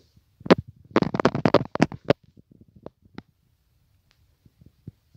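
Close handling noise from a hand gripping a moss-covered orchid clump right by the phone's microphone: a single crackle about half a second in, a dense burst of crackling and clicks around one to two seconds in, then a few scattered faint ticks.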